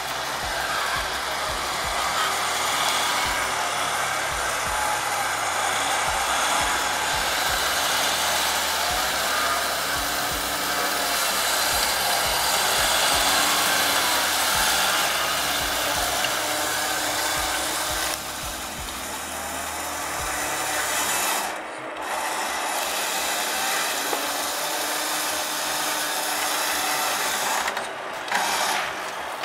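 Vehicle recovery winch winding in its cable under load to pull a bogged 4x4 out: a steady, rasping mechanical grind with a faint whine, breaking off briefly twice in the later part.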